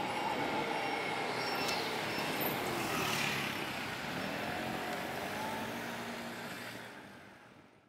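Tram running along the track: a steady rumble with a faint whine that glides up and down, fading out near the end.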